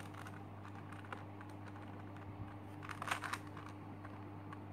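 Plastic clicks and clacks of a Super Square One (SSQ-1) twisty puzzle as its layers are turned by hand, with a quick cluster of clicks about three seconds in.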